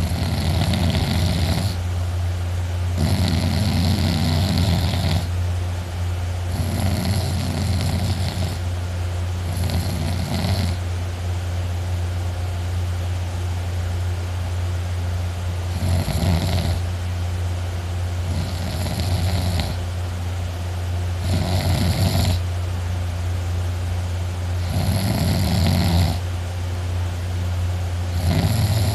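A person asleep sitting up in a chair, snoring loudly: about nine snores, one roughly every three seconds, with a pause of about five seconds in the middle. A steady low hum runs underneath.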